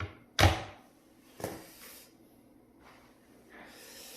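A person breathing out sharply close to the microphone, twice about a second apart, then a softer, longer exhale near the end.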